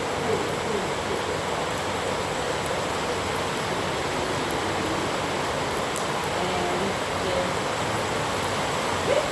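Heavy rain pouring down steadily, an even dense hiss.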